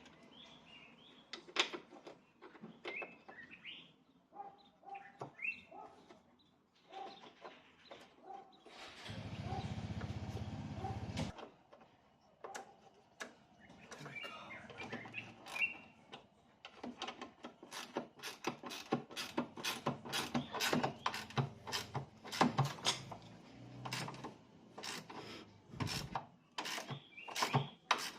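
Birds chirping, with a brief steady rushing noise of about two seconds in the middle. From past the halfway mark comes a rapid, uneven run of sharp metallic clicks and knocks from hand tools at work on the SUV's rear shock absorber mounting.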